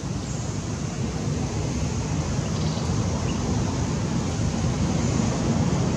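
Wind buffeting the microphone: a steady, rumbling rush of noise that grows slightly louder, with no monkey calls.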